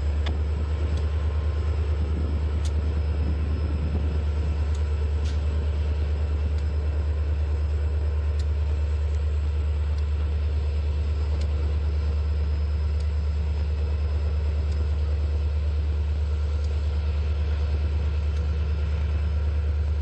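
Diesel locomotive engine running steadily at low throttle as the locomotive creeps forward, a deep even drone, with a few faint light clicks.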